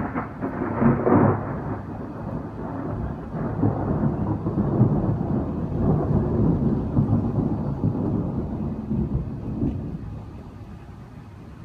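Thunder: a sharp peal in the first second or so, then a long rolling rumble that dies away near the end.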